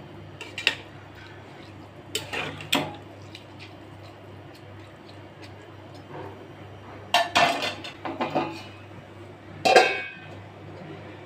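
A spatula knocks and scrapes against a cooking pot in several short clatters as basmati rice is stirred in its cooking water. Near the end a stainless-steel lid clinks down onto the pot with a brief metallic ring.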